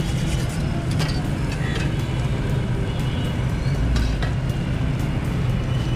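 Steady low rumble of street and traffic noise, with scattered sharp clicks as a steel knife is moved and set down on a flat steel griddle.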